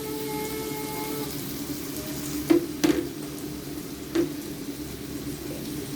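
Chicken breast sizzling as it fries in olive oil in a frying pan, a steady hiss with three sharp knocks about two and a half, three and four seconds in.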